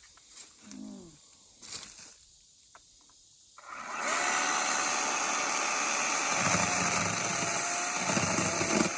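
Ryobi 18-volt battery chainsaw starting about three and a half seconds in and running steadily with a whine, cutting a stump down near the ground.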